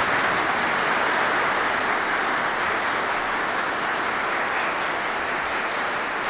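Sustained applause from a large audience in a hall, a steady dense clapping that eases slightly near the end.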